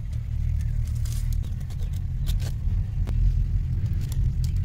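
Steady low rumble, with scattered light clicks and rustles from a woven bamboo basket of grapes being handled.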